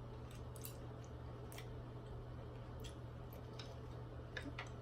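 Faint, irregular clicks of someone eating: chewing, mouth and utensil clicks, about two or three a second, over a low steady hum.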